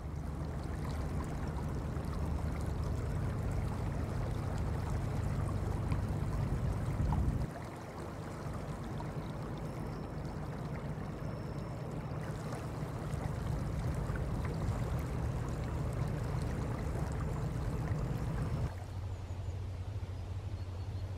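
Steady outdoor ambience of rushing river water with a low rumble underneath. It changes abruptly about seven and a half seconds in and again near the end.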